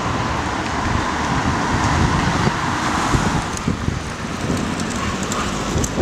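Outdoor street noise in a snowstorm: wind rumbling on the microphone under a steady hiss, with road traffic noise that swells and fades over the first three seconds.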